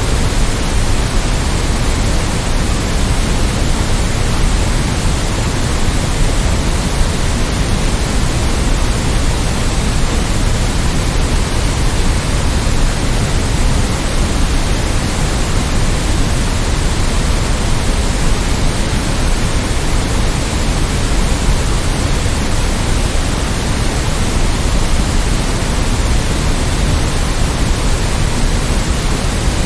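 Steady, unbroken synthetic white noise for sleep: an even hiss over the whole range, heavier in the low end, with no changes or events.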